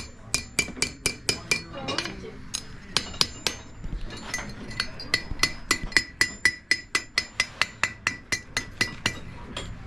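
Blacksmith's hammer striking iron on an anvil: a fast run of ringing blows, about four a second, with a short break about two and a half seconds in, stopping near the end.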